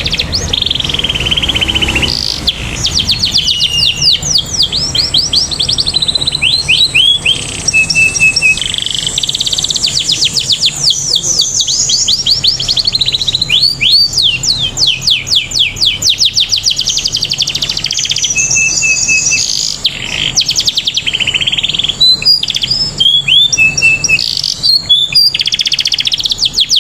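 Domestic canary singing a long, nearly unbroken song of fast trills and rapidly repeated sweeping notes, with a long high held note running under parts of it. This is a bird in full, prolific song.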